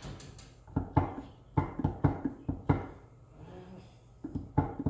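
Sharp metal knocks and clanks from tools working the nut of the belt pulley assembly, irregular strikes in quick succession with a pause about three seconds in.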